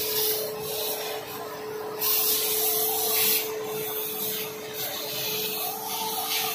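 Compressed air hissing from a hose in several bursts, the longest and loudest about two seconds in, over a steady low hum.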